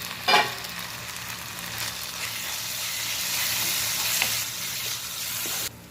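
Onion-tomato masala with spice powders sizzling in oil in a kadai while being stirred with a spatula, with a brief louder clatter about a third of a second in. The sizzle grows louder, then stops abruptly near the end.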